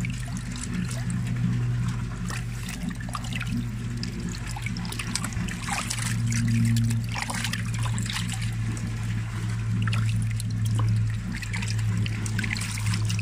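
Water splashing and dripping into a bucket as young carp are handled and lifted out of it, over a steady low hum.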